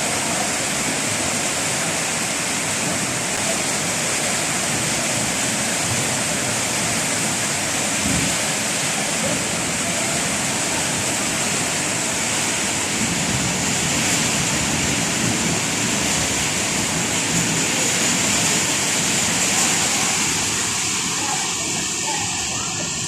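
Heavy monsoon rain pouring down in a steady, even rush during a thunderstorm.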